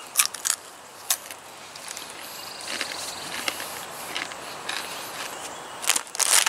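Crunching bites into a Takis Xplosion rolled corn tortilla chip: a few sharp crunches in the first second, then quieter chewing. A short burst of crackling comes near the end.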